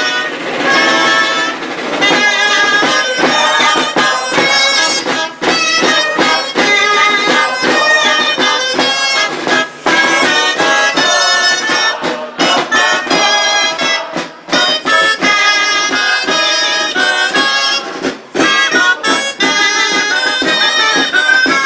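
Gralles, the Catalan double-reed shawms, playing a folk melody together in a bright, nasal, bagpipe-like tone.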